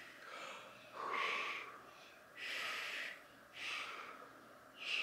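A person breathing audibly, a series of soft breaths about one a second.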